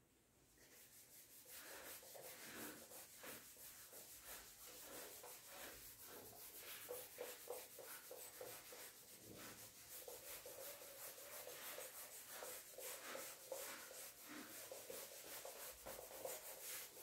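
Cloth wiping a whiteboard: faint, quick back-and-forth rubbing strokes, starting about half a second in.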